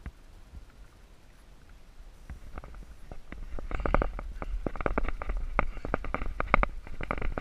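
Rod-and-reel handling noise as a hooked fish is fought from a kayak: irregular clicks and knocks over a low rumble. These grow busier and louder from about three seconds in, when the rod is grabbed.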